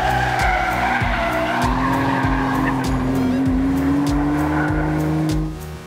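Porsche 911's rear-mounted flat-six engine pulling with a slowly rising note while its tyres squeal, over background music with a steady beat. The car sound cuts off near the end.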